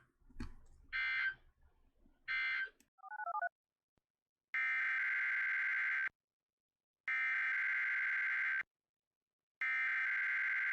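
SAME digital data tones of an Emergency Alert System / NOAA Weather Radio broadcast: three short screeching tones about a second apart, the end-of-message code closing one test. A brief warbling tone follows, then three longer screeches of about a second and a half each, a second apart: the header code that opens the next alert.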